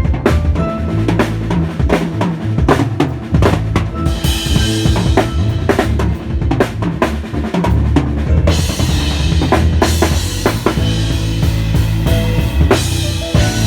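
Drum kit played busily at a sound check, with fast snare and bass-drum strokes over steady low notes. Cymbals ring out from about four seconds in.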